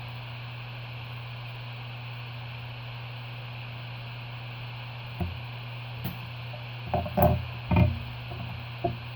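Steady low hum, then about halfway through a few short knocks and clicks of small tools and parts being handled on an electronics workbench, the loudest two close together near the end.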